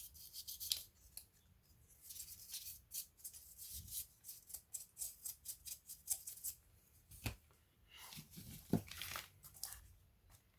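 Hands working on laptop parts: quick runs of short, crisp scratching and rubbing strokes, with a couple of sharper clicks or knocks about three-quarters of the way through.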